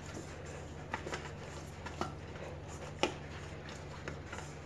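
Hands kneading stiff flour dough in a stainless steel bowl: a few light knocks of the dough and hands against the bowl, the clearest about three seconds in, over a steady low hum.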